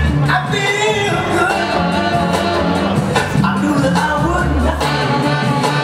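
Loud recorded dance music with a heavy bass line and singing.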